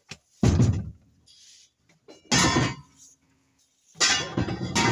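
Three heavy metal-on-metal strikes about two seconds apart, each followed by a short ringing, as steel tools bang on a forwarder wheel during tyre-changing work. The last is longer, with a ringing tone that fades out.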